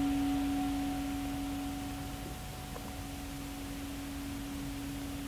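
A struck meditation singing bowl ringing on with a steady low tone and fainter overtones, slowly fading away. It marks the end of the silent meditation.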